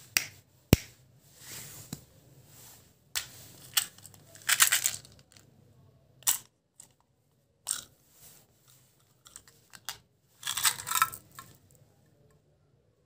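Colourful sugar-coated chocolate buttons rattling in a small clear plastic box and being tipped out into a palm, among sharp plastic clicks from the box and the candy packs. One sharp click comes under a second in, and there are longer rattles about halfway through and again near the end.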